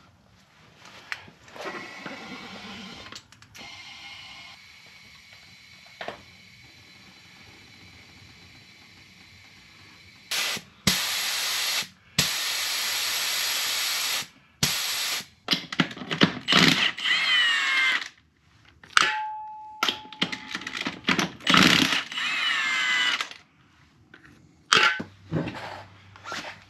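Pneumatic impact wrench running in a series of loud bursts, whirring and hammering as it spins the wheel's lug nuts off. The bursts come after a long steady run of loud air noise, and the first third is quieter handling sounds.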